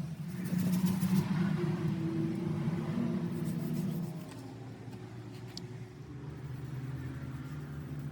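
A motor or engine running with a steady low hum, louder for the first four seconds and then settling quieter.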